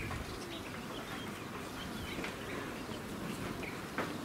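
Faint bird chirps scattered over a low background hum of the surroundings, with a single soft click near the end.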